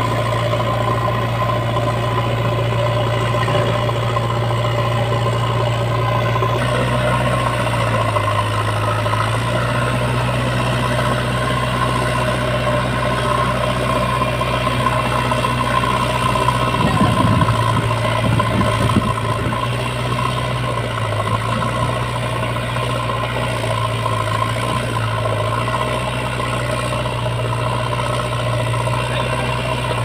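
Diesel engine of a JCB 3DX backhoe loader running steadily while working to pull a stuck, loaded tractor trolley. It gets rougher and a little louder for a couple of seconds past the middle.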